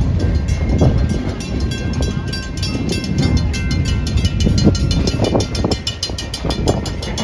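Passenger train rolling along the track, heard from an open-air railroad car: a steady low rumble of wheels on rails, with a fast, even high ticking over it.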